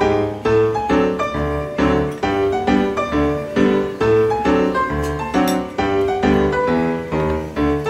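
Piano music playing a steady, evenly paced run of notes.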